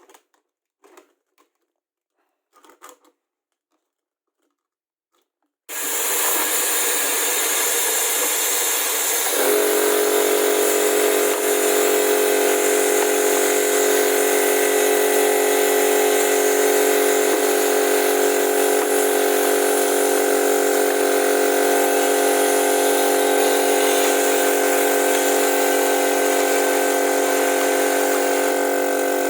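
A few faint clicks, then a compressed-air vacuum gun is opened about six seconds in with a sudden, loud, steady rush of air. About four seconds later a steady hum of several tones joins and runs on under the hiss.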